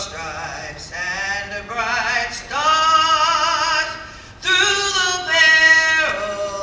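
Music with singing: sung voices holding long notes with vibrato, with a brief break about four seconds in.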